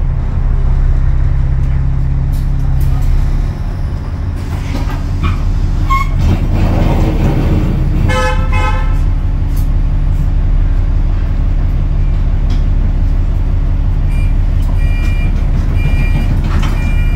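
Alexander Dennis Enviro400 double-decker bus engine running steadily as the bus drives. A vehicle horn toots briefly about eight seconds in, and a few short high beeps sound near the end.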